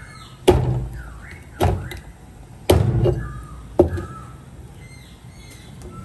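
Four heavy chops of a cleaver through a fish head onto a cutting board, about a second apart, each a sharp thud.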